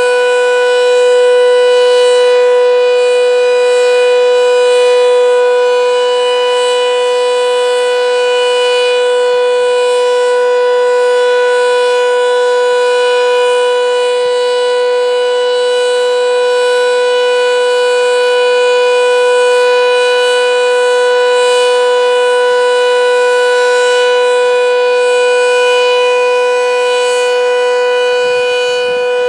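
Sentry 7V8-B outdoor warning siren sounding its steady alert signal: one loud tone held at a constant pitch, with its overtones, and no rise or fall.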